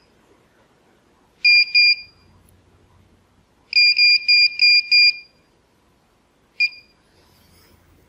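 Essex AKE-5 keyless entry keypad's electronic beeper sounding as the unit is wired up to power. A longer beep comes about a second and a half in, then a quick run of five beeps, then one short beep near the end, all on the same high pitch.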